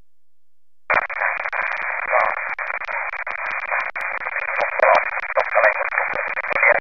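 Demodulated FM audio from a software-defined radio receiver tuned to 145.925 MHz in the 2-metre amateur band. It cuts in suddenly about a second in as a narrow, tinny band of radio sound: a voice-like transmission over hiss.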